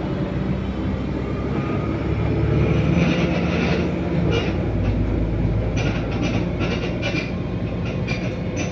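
A moving bus: a steady engine and road rumble, with clusters of short, sharp creaks and squeaks from the bus body from about three seconds in. It creaks like an old cart.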